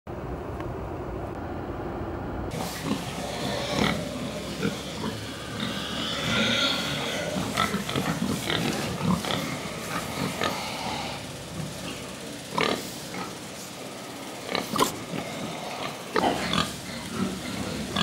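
Pigs and piglets vocalising and shifting about in a piggery shed, an irregular stir of animal sounds with a few sharp knocks in the second half. The first couple of seconds are only a low, muffled rumble before the pig sounds cut in.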